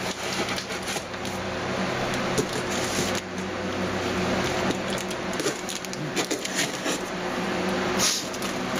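A knife slitting packing tape and cutting into a cardboard box: a continuous scratchy run of scrapes, crackles and small clicks as the tape tears.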